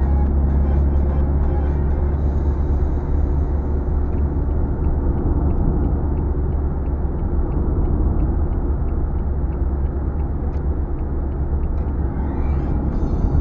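Steady rumble of a car driving on a wet road, heard from inside the cabin: low road and engine noise with tyre hiss. A faint regular tick, about twice a second, comes in through the middle stretch.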